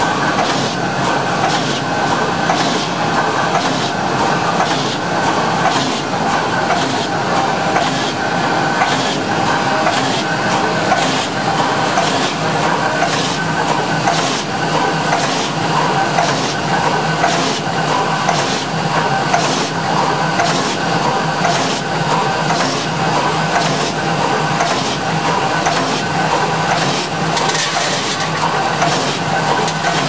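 OMAS gas-pipe clamp making machine running, its vibratory bowl feeder rattling hex nuts: a steady mechanical clatter and hum, with regular metallic strikes somewhat under two a second.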